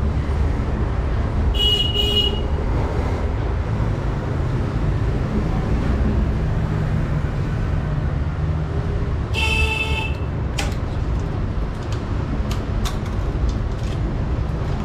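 Steady low traffic rumble with two short vehicle-horn toots, one about 1.5 s in and one about 9.5 s in. A few light clicks follow near the end.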